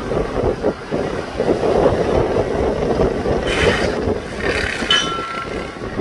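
A train passing, rumbling steadily with hissing bursts in the middle and a thin metallic squeal near the end, with wind buffeting the microphone.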